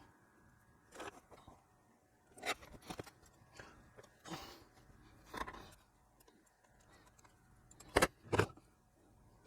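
Small tools and parts handled on a workbench: scattered light clicks and rustles, with two sharper knocks about eight seconds in.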